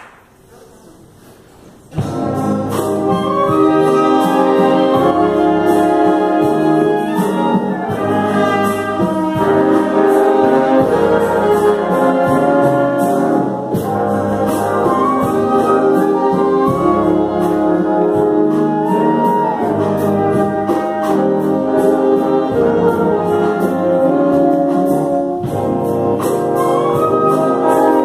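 A wind band of brass, woodwinds and drum kit playing together. After a brief quiet pause, the full band comes in loudly about two seconds in and plays on.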